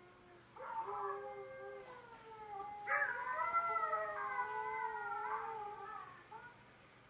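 A dog howling in two long, wavering calls. The second call starts about three seconds in and is longer and louder than the first.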